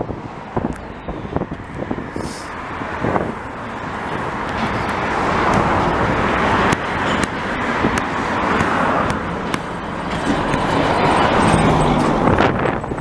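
A double-stack container train rolling past, with many sharp clicks from its wheels on the rails, over a steady wash of highway traffic that swells louder in the middle and again near the end.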